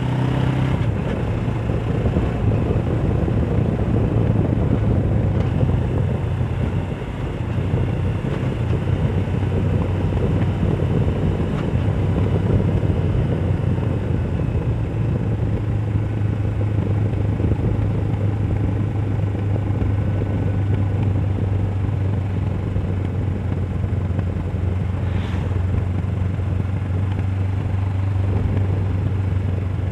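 Suzuki GS500F's parallel-twin engine running at a steady cruise while riding, with wind rushing over the helmet-mounted microphone. The engine note dips briefly about seven seconds in, then settles at a steady pitch again.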